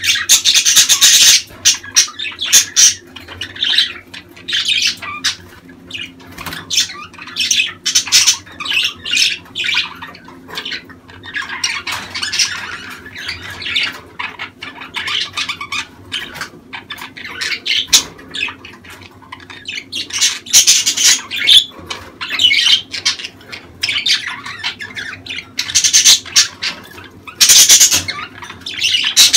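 Budgerigars chattering in irregular scratchy bursts with short pauses between them: the breeding-season chatter of budgies.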